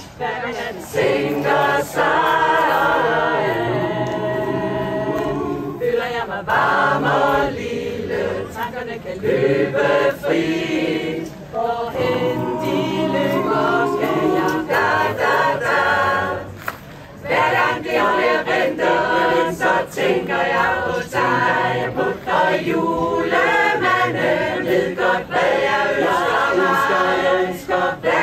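Mixed choir of men and women singing unaccompanied, in phrases broken by short pauses.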